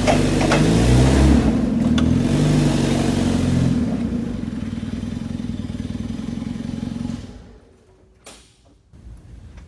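Forklift engine revving hard while its drive tyres spin in place on self-adhesive vinyl planks, with a few sharp clicks. About four seconds in the revs drop to a steadier, quieter run, and the engine sound falls away about seven seconds in.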